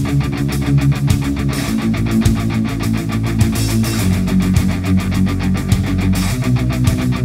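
Background rock music with electric guitar and a fast, steady beat.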